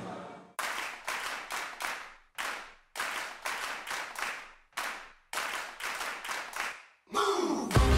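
About a dozen sharp percussive hits, like claps, at uneven intervals, each with a short ringing tail. Just before the end a falling swoosh leads into music with a heavy bass beat.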